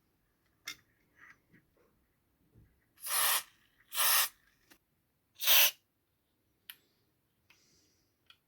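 Three short hissing bursts from an aerosol can of contact cleaner, about a second apart, with a few faint clicks in between.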